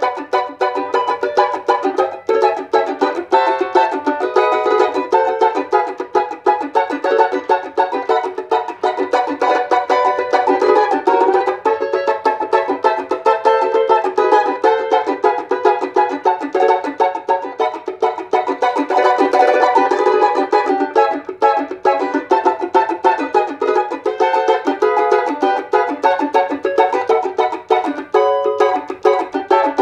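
Rozini JR11 four-string Brazilian pagode banjo strummed acoustically in a fast, steady rhythmic groove. Its head is damped with a muffler and tape to cut the ringing overtones and treble, giving a dry sound.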